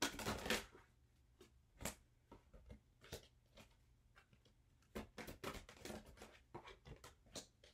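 Tarot cards being handled on a table: soft slaps and rustles as cards are drawn and laid down, in a short run at the start and again about five seconds in, with scattered single clicks between.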